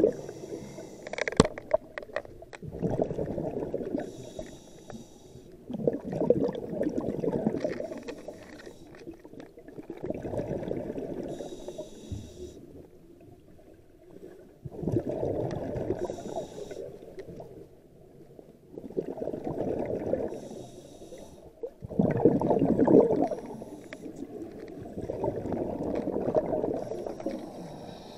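Scuba diver breathing underwater through a regulator: bursts of exhaled bubbles rumbling every three to four seconds, with a hissing inhale between them. A sharp click about a second in.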